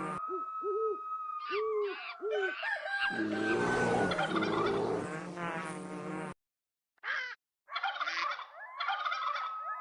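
Bird calls with abrupt edit cuts: a few short, low hooting notes, then a turkey gobbling from about three seconds in. The sound cuts out to dead silence twice near the middle, then more calls resume.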